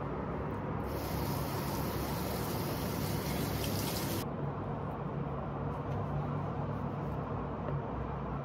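Kitchen tap water running into a bowl of strawberries being rinsed at the sink, hissing for about three seconds and then shut off abruptly. A steady low rumble runs underneath.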